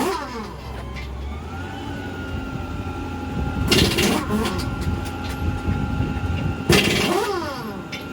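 Highway traffic passing close by: one vehicle going past right at the start and two more about four and seven seconds in, each swelling and falling in pitch as it goes by, over a steady low engine rumble.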